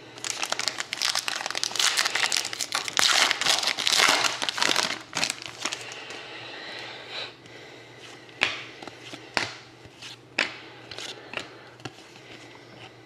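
Hockey card pack wrapper torn open and crinkled, a dense crackling for the first few seconds. After that, separate sharp clicks and snaps as the cards are handled.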